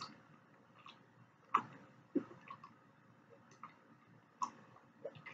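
Faint, scattered mouth sounds while drinking water from a glass: a few soft swallows and small clicks at uneven intervals.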